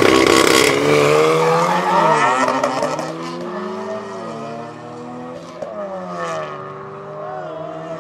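Volkswagen Golf R Mk7's turbocharged 2.0-litre four-cylinder accelerating hard from a standing start. The engine note climbs and then drops at each of several quick upshifts, with a sharp crack at one shift, and fades as the car pulls away.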